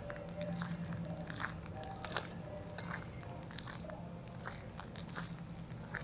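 Footsteps crunching on gritty concrete at a slow walking pace, as short irregular clicks, over a steady low hum.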